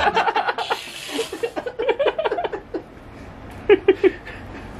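Men laughing and crying out, with three short loud yells close together near the end, just after a frying pan has been dropped on one man's head.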